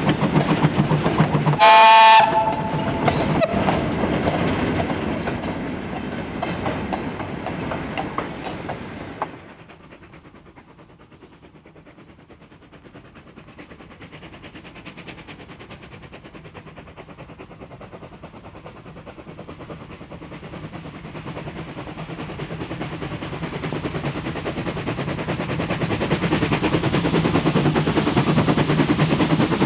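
A steam locomotive's whistle gives one short blast about two seconds in, over the rumble of a coal train's wagons, which then fades away. After a cut, a steam locomotive hauling a train of mineral wagons approaches, its working sound growing steadily louder toward the end.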